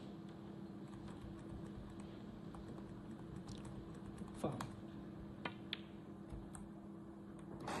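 Sparse light clicks over a steady low electrical hum. There is a heavier knock about four and a half seconds in, a couple of small clicks soon after, and a sharp click at the very end.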